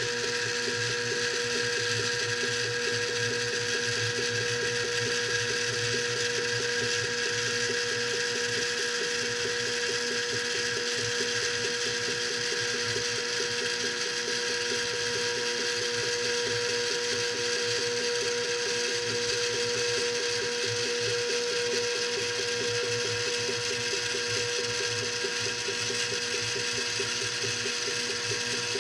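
3D printer running a print, its stepper motors giving a steady mechanical whine with several held tones over a fast, even rhythm.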